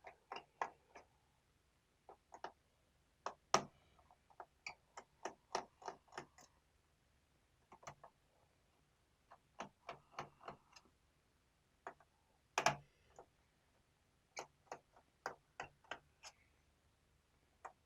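Irregular small clicks of a screwdriver working the screws out of a laptop's plastic bottom cover, coming in clusters of a few a second, with one louder click about two-thirds of the way through.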